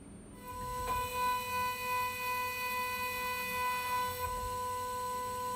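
Ringmaker CNC jewelry milling machine's high-speed spindle running and engraving a metal bangle: a steady, high whistling whine that starts about half a second in and holds one pitch with several overtones.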